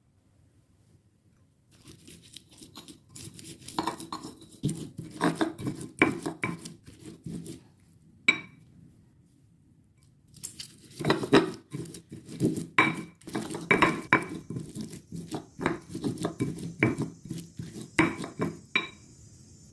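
Utensils clinking and scraping against pots and dishes, in two bouts with a pause of about two seconds between them; some of the clinks ring briefly.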